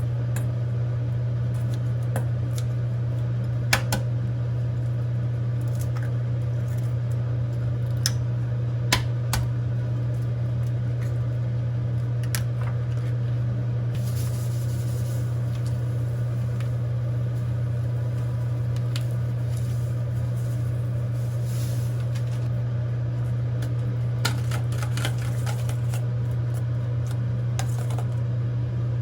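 A steady low hum from a running kitchen appliance, with scattered sharp clicks and light knocks of kitchen handling over it.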